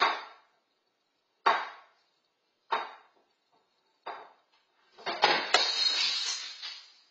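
A bowl knocked about on a table by a dog, four sharp knocks about a second and a half apart, then falling to the floor and shattering with a crash of many pieces that clatters on for about two seconds.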